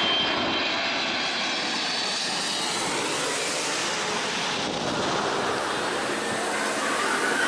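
Jet aircraft engines running steadily: a dense rushing noise with faint whining tones that drift slowly in pitch.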